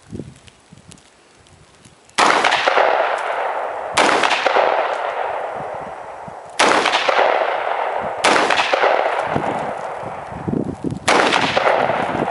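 AR-15-style semi-automatic rifle firing five single shots at an uneven pace, roughly two to three seconds apart, starting about two seconds in. Each shot is a sharp crack with a long echoing decay.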